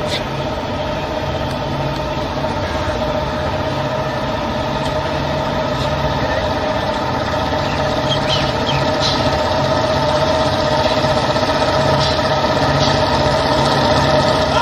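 A group of Royal Enfield Bullet motorcycles running slowly together, their single-cylinder engines growing gradually louder as the formation comes closer.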